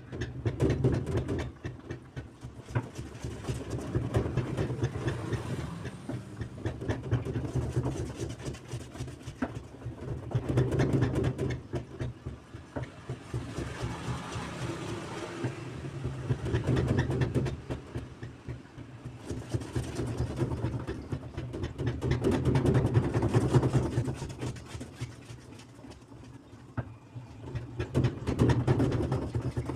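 Sharp washing machine running with a loud, fast mechanical rattling over a low hum, swelling and easing in waves every few seconds: the abnormal noise of a fault in the machine.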